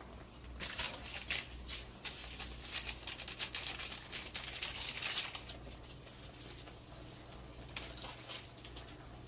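Thick goat caldereta stew bubbling and popping as it simmers in a pan: an irregular patter of small pops that thins out after about five seconds, over a steady low hum.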